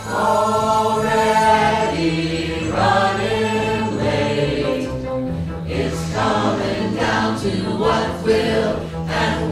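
Mixed vocal ensemble of men and women singing held chords in harmony, the chord shifting every second or two over steady low notes.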